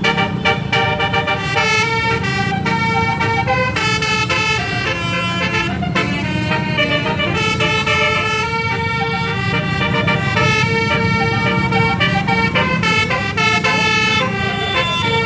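Bus telolet horns playing a quick tune of several tones sounding together, changing pitch every fraction of a second, over the steady low rumble of bus engines.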